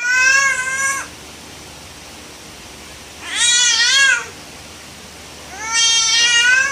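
Infant crying: three wailing cries about a second each, with short pauses between, the middle one wavering up and down in pitch.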